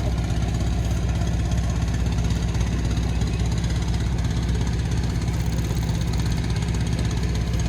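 A small engine running steadily at an even speed, with a fast regular low throb.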